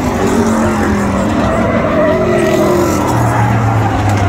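Several full-size pickup race trucks running at speed together, their engines pitch sliding up and down as they race through the turns and pass.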